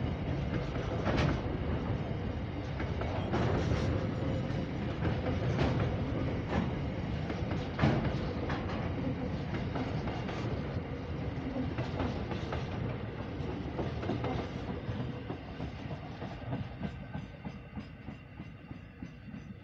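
Freight train's wagons rolling past, their wheels clacking over rail joints at uneven intervals over a steady rumble. The sound fades over the last few seconds as the end of the train draws away.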